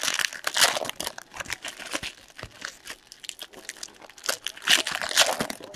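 Trading card pack wrappers being torn open and crumpled by hand, with cards rustling as they are handled, in rapid crackly bursts that are loudest in the first second and again about four to five seconds in.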